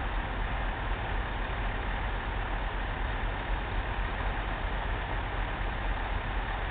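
Sugar beet harvest machinery running steadily: a tractor engine pulling a beet harvester, a continuous low rumble under an even mechanical noise.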